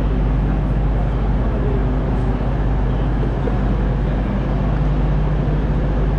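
Steady low hum of an idling train engine, with faint background chatter.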